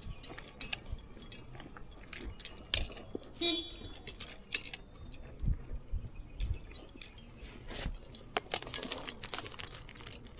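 Irregular clicks, taps and scrapes from asphalt roof shingles being handled and lifted, with a few soft low thumps.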